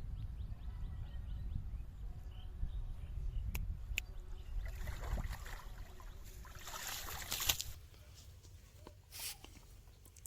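Water splashing and sloshing in two spells near the middle, over a low wind rumble on the microphone, with a few sharp clicks.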